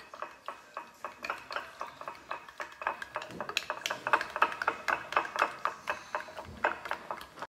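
A utensil stirring a thick sauce of ketchup, mustard and mayonnaise in a bowl, clicking and scraping against the bowl's sides several times a second.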